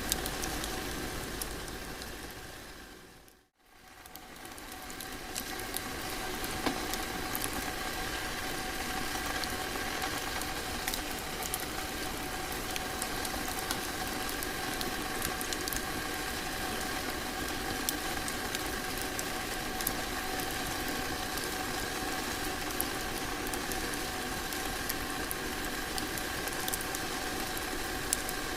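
Crackling fireplace ambience: a steady hiss with scattered sharp crackles and pops. It fades out to near silence about three and a half seconds in, then fades back up and runs steadily.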